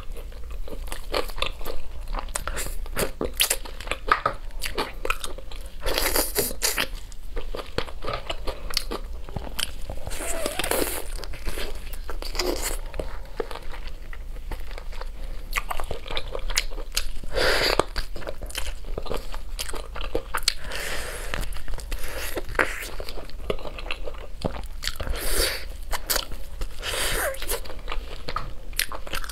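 A person chewing and biting into braised spare ribs, with repeated crunches and clicks as the meat is pulled off the bone.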